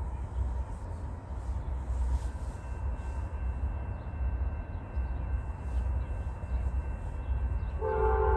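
A low rumble, then near the end a train's air horn starts blowing, a loud chord of several notes held on.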